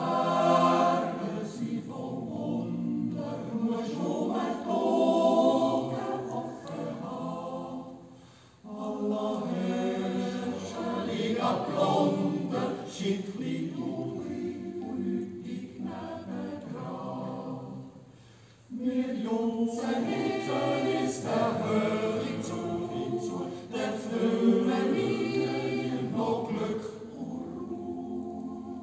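Swiss yodel choir of men and women singing a yodel song a cappella, in three long phrases with brief breaks about 8 and 18 seconds in.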